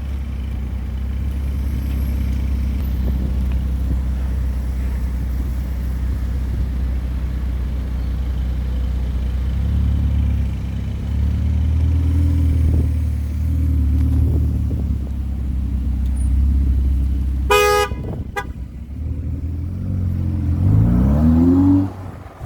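Car engines running in street traffic, with a car horn tooting briefly about three-quarters of the way in, then a short second toot. Near the end an engine revs up hard, its pitch climbing quickly, before it cuts away.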